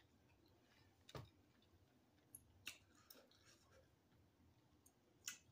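Near silence with a few faint clicks from eating noodles, about three of them spread through it.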